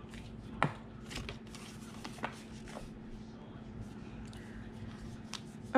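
Light clicks and rustles of small cosmetic packaging being handled, a few separate ticks over several seconds, the sharpest about two-thirds of a second in, over a faint steady hum.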